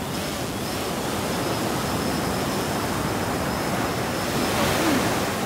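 Ocean surf breaking and rushing steadily on the beach, with wind buffeting the microphone, swelling a little near the end.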